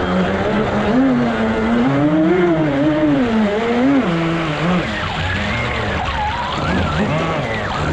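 Brushless RC speed boat motors whining, their pitch rising and falling with the throttle over the splash of the hulls on the water.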